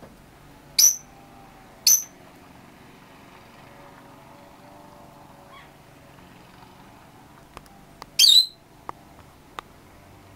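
Small bird chirping: two short, sharp, high chirps about a second apart near the start, then a longer wavering call about eight seconds in, with a few faint ticks around it.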